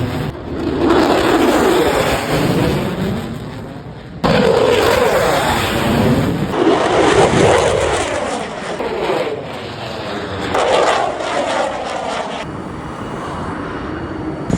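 Military jet aircraft passing low overhead, a loud rushing engine roar with a sweeping, swirling rise and fall in tone. The sound changes abruptly several times, as separate passes are cut one after another.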